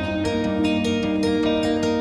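Background instrumental music of plucked strings, a steady stream of notes ringing over held low tones.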